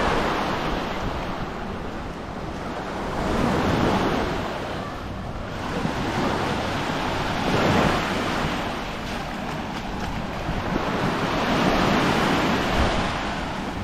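Small waves breaking and washing up on a sandy shore, the surf swelling and fading about every four seconds.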